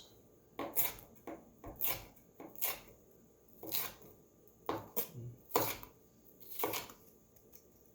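Kitchen knife slicing a bell pepper into long strips on a cutting board, a sharp knock each time the blade meets the board, about once a second and unevenly spaced.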